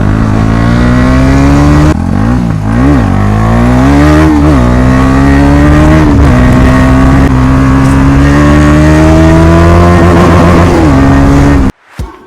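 KTM Duke motorcycle engine running very loud through its exhaust with the dB killer removed. The engine pitch climbs slowly and dips several times, with a few quick blips about two to four seconds in, then cuts off suddenly near the end.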